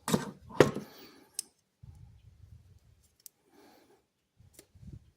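Hammer tapping a punch against a pocket knife's handle pins: a few sharp metal strikes in the first second and a half, the second one the loudest, then lighter clicks of handling. The blows are peening the pin heads over rather than driving the pins out.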